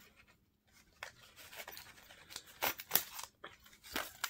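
A small zippered cosmetic bag being opened and its packaged contents handled: a string of short, irregular rustles, scrapes and crackles starting about a second in, the loudest near three and four seconds.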